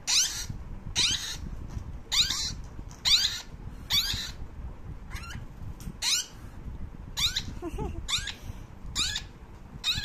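Parakeet chicks giving shrill begging calls, roughly one a second, each call sliding down in pitch, as they take hand-feeding formula from a spoon: the cries of hungry chicks.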